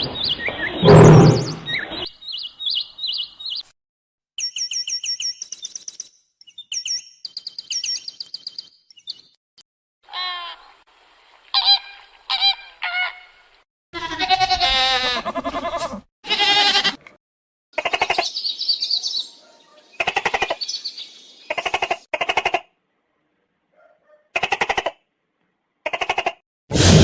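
A run of different animal calls, one after another with short silences between. First comes a loud noisy call at the start, then rapid high-pitched chirps and trills. After that come lower pitched, bleat-like calls repeated in short bursts about half a second long.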